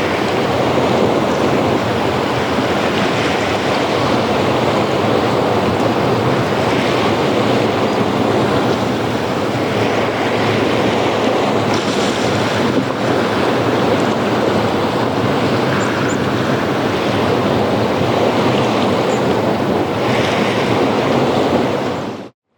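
Ocean surf washing steadily onto a beach, a dense even rush that swells gently, until it cuts off abruptly near the end.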